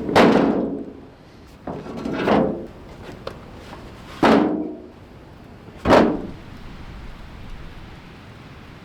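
Four hard knocks or bangs, each starting suddenly and ringing briefly before fading, spaced about one and a half to two seconds apart, followed by a low steady background.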